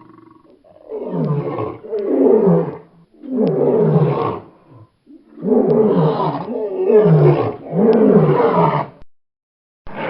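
Lion roaring: a series of about six calls, each about a second long and falling in pitch, one after another with short gaps.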